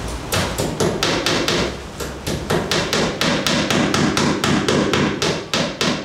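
Hammer striking with quick, evenly spaced blows, about four a second.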